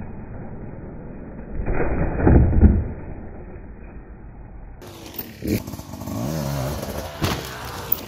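Dirt bike engine running as the bike drops off a ledge, louder for about a second around two seconds in. After an abrupt change in the sound about five seconds in, the engine rises and falls in pitch, with a few sharp knocks.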